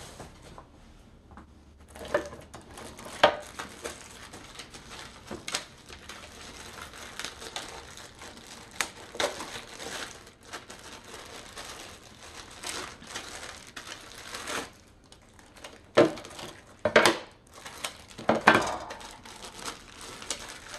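Clear plastic packaging bag crinkling and rustling as it is handled and opened by hand. The crackles come irregularly, with a few louder ones in the last few seconds.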